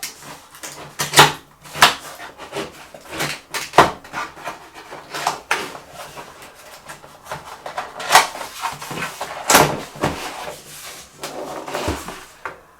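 Packaging being handled by hand: irregular rustling and crinkling, with several sharper knocks and taps.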